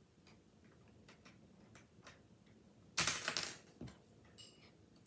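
Small plastic clicks and taps of Lego pieces and minifigures being handled on a model, with a louder half-second burst of handling noise about three seconds in and a shorter one just after.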